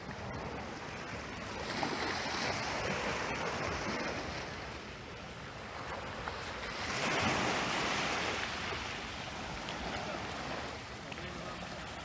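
Small waves of a calm sea washing up onto a sandy beach and draining back, swelling and easing off. The wash is loudest about two seconds in and again a little past halfway.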